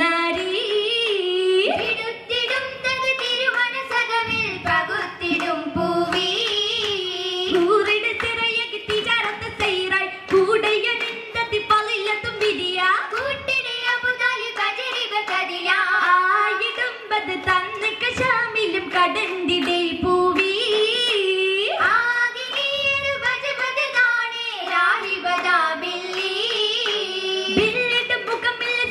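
Girls' voices singing a Mappila oppana song in unison into a microphone, with the dancers' rhythmic hand-clapping keeping the beat.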